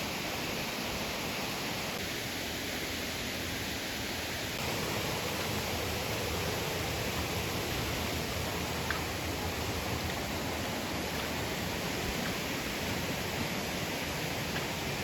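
Steady rushing of flowing water from a forest stream, an even hiss with no breaks.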